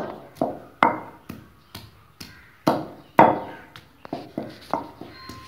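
Wooden pestle pounding in a stone mortar, crushing garlic and ginger into a paste: about a dozen dull knocks at roughly two a second, some harder than others.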